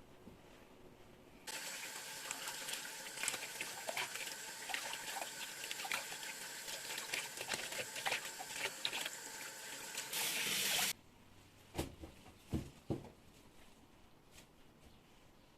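Water running from a tap and pattering onto things in a sink, shut off abruptly after about nine seconds. A few soft knocks follow.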